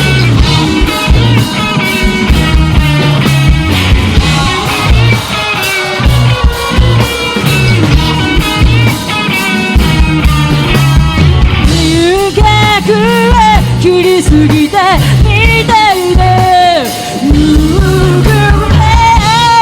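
Live rock band playing: a drum kit, bass and electric guitars. A bending, wavering lead melody comes to the front about twelve seconds in.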